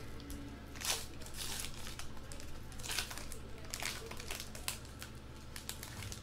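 Trading-card pack wrapper crinkling and rustling in short bursts as it is handled and opened, with cards shuffled against it.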